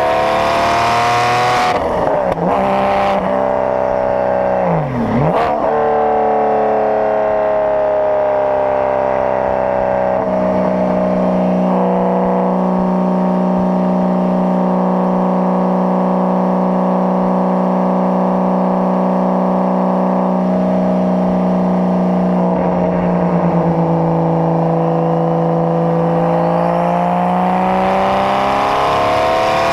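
Porsche GT4 RS exhaust heard close at the tailpipe while driving. The engine note swings up and down over the first few seconds, with a sharp drop and recovery about five seconds in, then holds a steady drone at constant speed. It shifts again past the middle and climbs steadily as the car accelerates near the end.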